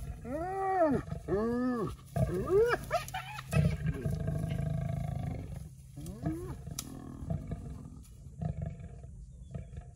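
Spotted hyenas calling: three loud, pitched yelps in quick succession in the first three seconds, each rising and then falling in pitch, with a couple more shorter calls around six seconds in.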